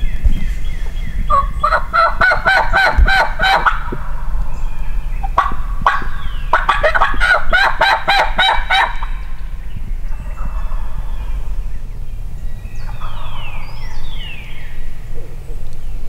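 Wild turkey gobbling twice, each gobble a rapid rattling call lasting about three seconds, a few seconds apart. A steady low wind rumble sits under it.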